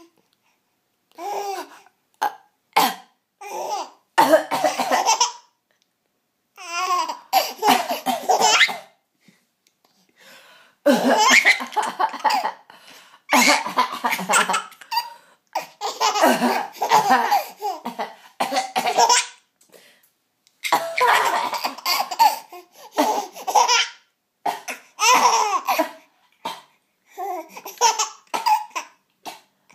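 A five-month-old baby laughing in repeated bursts of a second or two with short pauses between, set off by someone's short coughs in the gaps.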